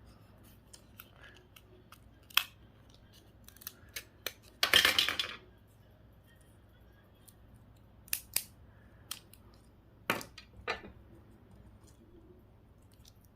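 Small hand tools and plastic and metal parts of a GPS unit being worked apart: scattered sharp clicks and snips, with a louder scraping rustle lasting about half a second around five seconds in.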